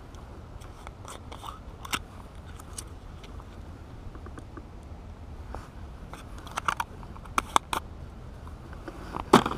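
Hands working a small plastic PowerBait jar and its lid close to the microphone: scattered sharp plastic clicks, small scrapes and crunches. The clicks bunch up about two-thirds of the way in and the loudest comes near the end, over a steady low rumble.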